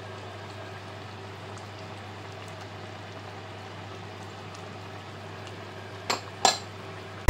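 Beef in hoisin sauce simmering in a pan, a steady bubbling with faint pops over a low hum. Two sharp clinks of the pan lid about six seconds in.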